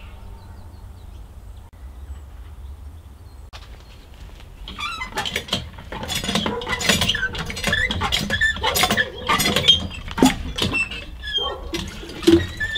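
Garden hand pump drawing rainwater from a cistern, worked stroke by stroke from about five seconds in, with water splashing into a plastic watering can. The strokes come roughly once a second and are uneven.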